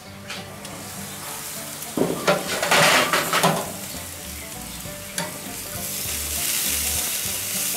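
Stainless steel lid of a Coobinox gas grill being raised with a loud metallic rattle and knocks about two to three seconds in. Then pork neck steaks sizzle on the hot grates over the burners, the sizzle growing near the end as tongs turn them.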